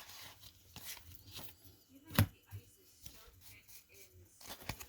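A pack of baseball cards being opened and handled: light rustling and scattered clicks from the wrapper and cards, with one sharp click a little after two seconds in and a few more near the end.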